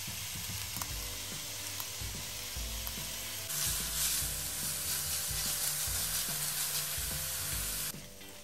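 Chopped onion sizzling as it fries in vegetable oil in an enamelled pan, stirred with a silicone spatula. The sizzle gets louder about three and a half seconds in and drops back near the end.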